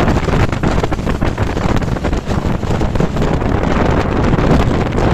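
Wind rushing over the microphone on a moving RIB boat, over the steady noise of its outboard motor and the hull on the water.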